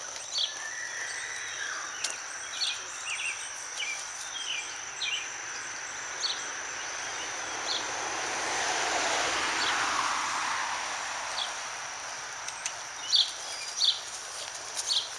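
Rural outdoor ambience: a steady high insect drone with short bird chirps scattered through, and a broad swell of noise about nine to ten seconds in.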